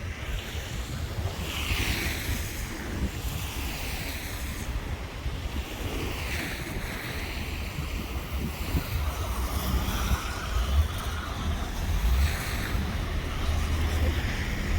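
Wind buffeting the microphone outdoors: a steady low rumble with a rushing hiss that swells and fades a few times.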